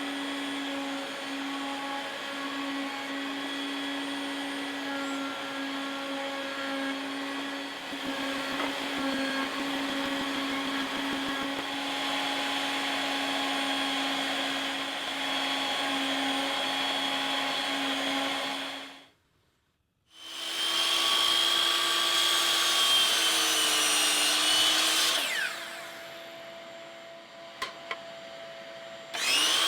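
Electric power tool's motor running at a steady whine, then after a short break a second run that dips in pitch under load and winds down, followed by a quieter hum and a brief burst near the end.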